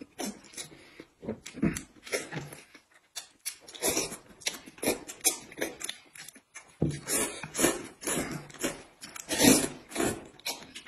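Two people slurping noodles and soup and chewing: an irregular run of wet slurps and smacks, the loudest slurp near the end.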